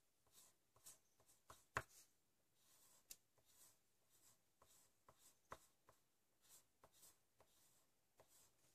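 Faint scratching of a graphite pencil on paper, drawn in short, irregular strokes as curved lines are sketched, with one sharper tap about two seconds in.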